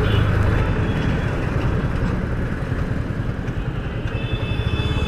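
Yamaha MT-15's single-cylinder engine running steadily while riding, under a haze of wind and road noise on the helmet microphone, whose foam windscreen has fallen off. A thin high tone joins near the end.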